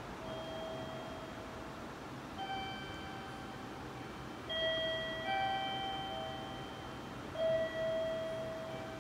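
Electronic chime tones in a train station: a slow series of sustained, bell-like notes at a few different pitches, louder about four and a half seconds in and again near the end.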